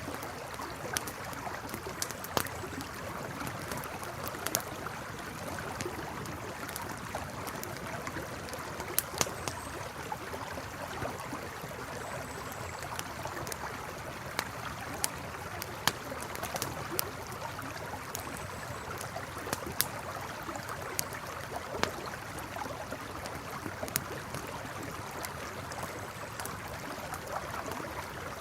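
A river flowing steadily beside a crackling campfire, the fire giving sharp pops and snaps at irregular intervals over the even rush of the water.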